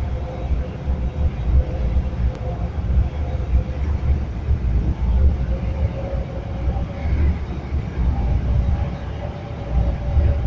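Underground train running, heard from inside the carriage: a steady low rumble with a faint thin whine running through it.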